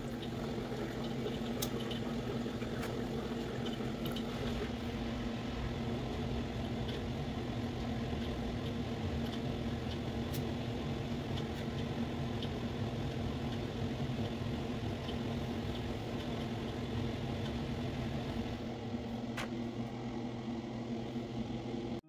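Small wall-mounted extractor fan of a homemade airbrush spray booth running steadily, a hum with rushing air and a few faint clicks.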